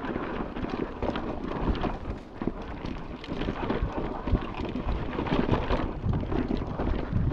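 Wind buffeting the microphone, over the uneven rattle and knocks of a mountain bike riding over rough, rocky trail.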